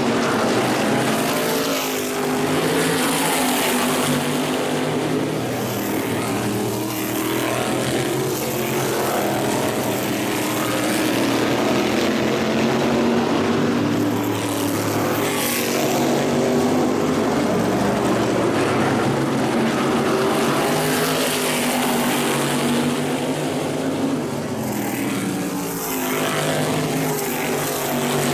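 Modified race cars' V8 engines running at racing speed on a short oval, several cars at once, their pitch rising and falling as they pass.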